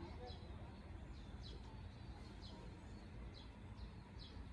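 A bird calling in short, falling chirps, about seven of them, over a steady low rumble of outdoor background noise.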